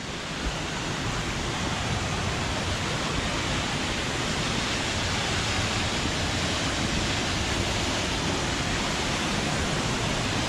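Marymere Falls: the steady rush of a tall waterfall, growing a little louder over the first couple of seconds and then holding even.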